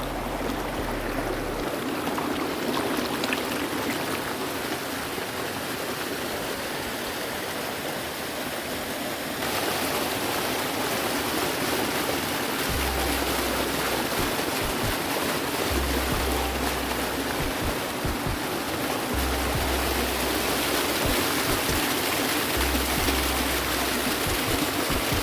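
Steady rush of water from a small waterfall and stream, growing a little louder about nine seconds in. Background music with low bass notes comes in over it in the second half.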